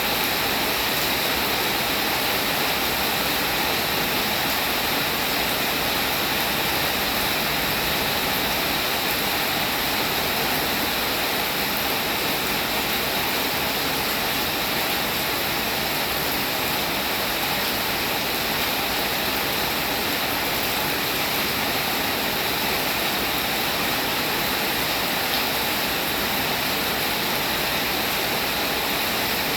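Steady rainfall, an even hiss of water with no single drops, thunder or other events standing out.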